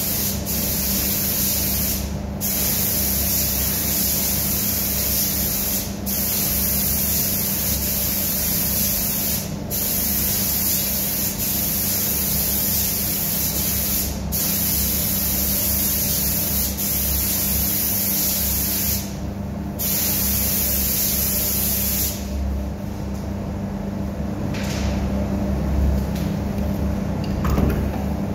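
Compressed-air spray gun spraying lacquer onto a wooden stair post: a steady hiss broken by short pauses as the trigger is let go, ending about three-quarters of the way through. A steady low machine hum runs underneath.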